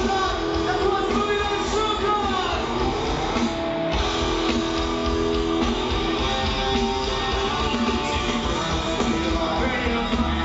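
A rock band playing live through a festival PA: electric guitars, bass and drums with singing, heard from within the crowd.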